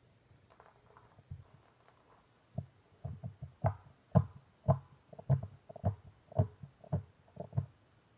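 Clear slime being squeezed and pressed by hand: a run of short wet squelches and pops, about two a second, starting about three seconds in after a few faint ticks.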